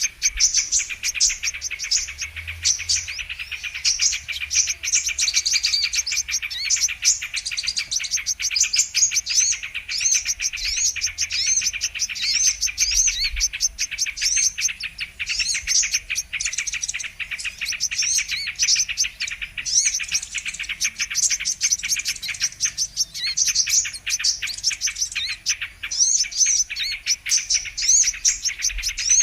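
Brown-throated sunbird (kolibri kelapa) calling and singing: a dense, unbroken stream of rapid high chirps and short twittering notes, several voices overlapping, as played for a bird-lure recording.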